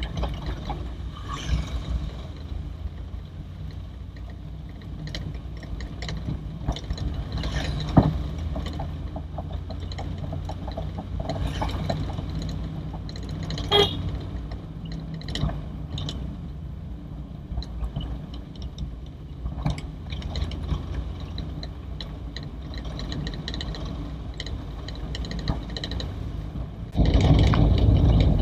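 A 1980 Toyota Corolla DX driving slowly, heard from inside the car: a steady low engine and road hum with scattered light knocks and rattles. About a second before the end it suddenly gets much louder.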